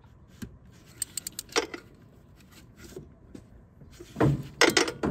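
Metal hand tools clicking and clinking in the engine bay as a ratchet wrench and socket snug down a new spark plug. There is a quick run of clicks about a second in and a denser clatter near the end.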